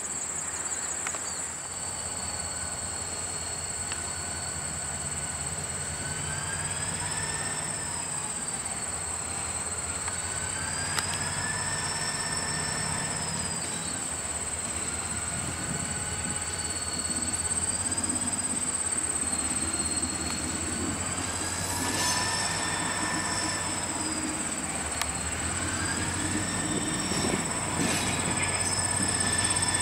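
EMD SD40-2 diesel locomotive, a 16-cylinder two-stroke, moving slowly with freight cars and growing louder as it approaches. Its engine rumbles low beneath high, wavering squeals from the wheels. Insects trill steadily throughout.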